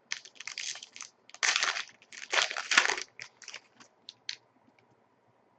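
Plastic wrapper of a trading-card pack crinkling as it is torn open and handled, in a run of rustles that thin out into a few light clicks.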